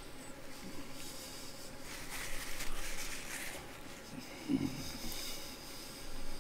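Soft mouth sounds of closed-mouth chewing of fried chicken, with breathy nasal hissing, and faint handling noise as fingers pick at chicken pieces in a plastic takeout tray. A brief low hum a little past the middle.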